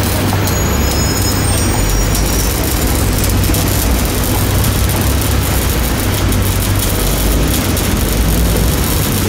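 Arc welding on a tram rail: the continuous crackle and hiss of the welding arc over the steady low drone of an engine running.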